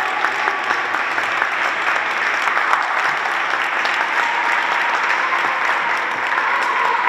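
Spectators in an ice hockey rink applauding, a dense, steady patter of many hands clapping.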